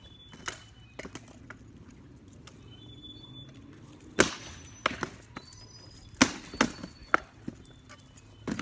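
Rattan swords striking shields and armor in armored sparring: a string of sharp wooden knocks. A couple of light ones come early, then heavier blows follow in quick succession through the middle, and one more lands near the end.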